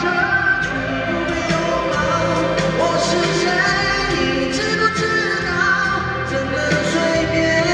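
A male vocalist singing a Mandopop song live into a microphone over backing music.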